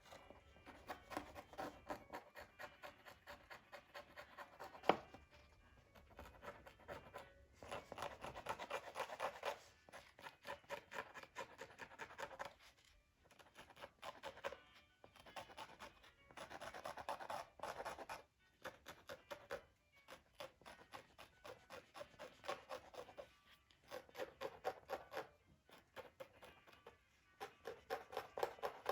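Rapid short scraping and rubbing strokes in bursts of a few seconds, with short pauses between them and one sharp click about five seconds in: an old tab stuck to a Torah scroll's parchment being scraped and worked loose.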